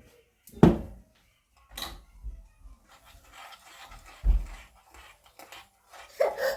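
Three dull knocks, about half a second in, near two seconds and just past four seconds, with faint rustling and light clinking between them.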